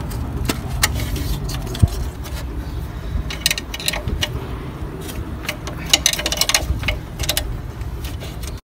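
Small clicks and light rattles of hands handling and working loose a plastic part in a car's engine bay, in two bunches, around the middle and again later, over a steady low rumble. The sound cuts off suddenly near the end.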